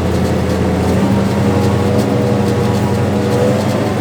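Tractor engine running steadily under load in third gear, pulling a seed planter; its deepest hum drops away about a second in.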